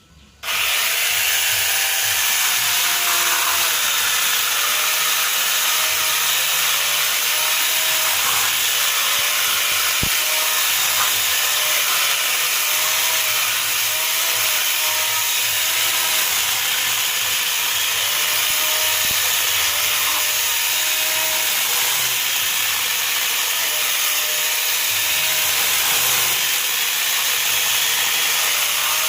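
Corded electric mini chainsaw switching on about half a second in and running steadily while cutting wood, its motor pitch wavering up and down as the chain takes the load.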